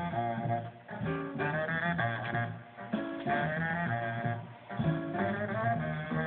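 Jazz playing from a radio: a saxophone line over bass, in phrases with short breaks, sounding thin because the top is cut off.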